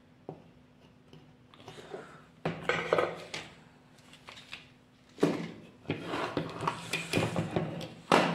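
A circuit board and its wiring handled and shifted about on a workbench by gloved hands: irregular clatters, rubbing and clicks, starting a couple of seconds in and coming again more busily in the second half, over a faint steady hum.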